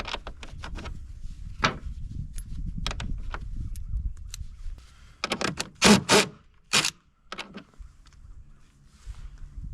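Clicks, clanks and scrapes of hand tools and sockets being handled while working on a generator's side panel, with several sharp knocks about six to seven seconds in and a low rumble during the first half.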